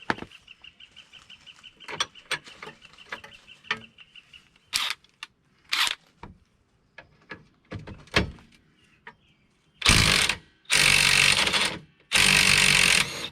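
Scattered clicks of tools on the suspension, with a steady chirping high tone in the background for the first few seconds. From about ten seconds in come three loud bursts of a power impact tool hammering at the 18 mm nut on the lower control arm-to-knuckle bolt to loosen it.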